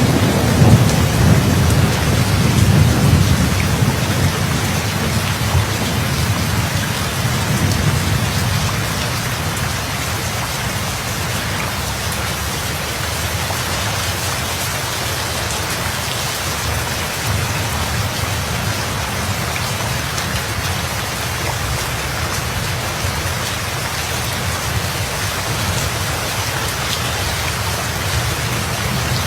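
Steady heavy rain hissing, with a long low roll of thunder over the first several seconds that slowly fades away.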